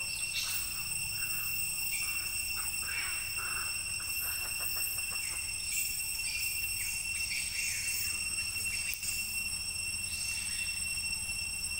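Forest ambience: a steady high-pitched drone of several even tones, with dry leaves rustling and scratching now and then.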